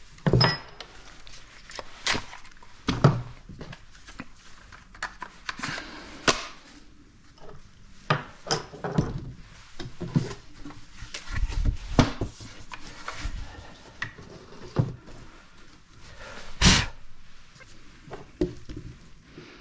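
Irregular knocks and clunks of a wooden cabinet door, a hinge-drilling jig and hand tools being handled and set down on a workbench, with one sharper knock near the end.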